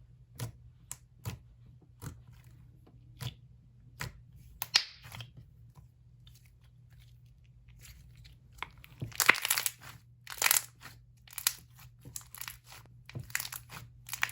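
Thick, glossy slime with boba beads being worked by hand, giving scattered sharp pops and clicks, then denser, louder crackling from about nine seconds in.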